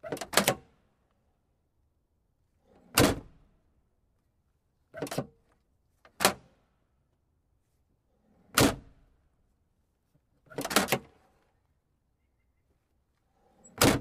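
Car trunk lid thunking shut again and again: seven separate sharp thunks, one to three seconds apart, some with a softer latch or swing sound just before the hit. The first is a double thunk.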